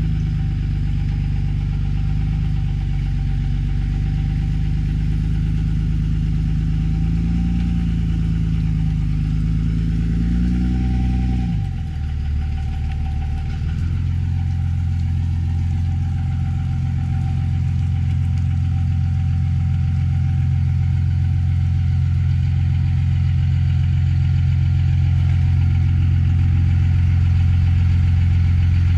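Pickup truck engine running. Its note wavers slightly, glides down about twelve seconds in, then settles into a steady idle.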